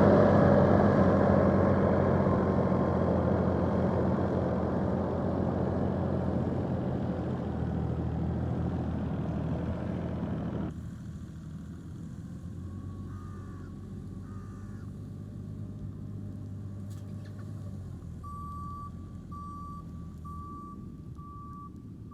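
JCB loader's diesel engine running steadily, its sound dropping suddenly about ten seconds in. Near the end the machine's reversing alarm starts beeping at an even pace.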